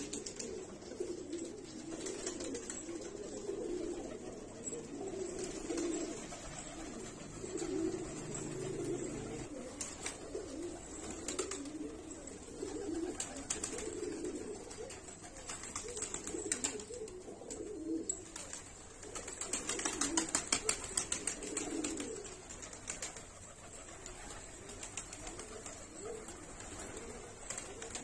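A loft full of Pakistani high flyer pigeons cooing steadily. Wings flap now and then, with a quick flurry of wingbeats about two-thirds of the way through.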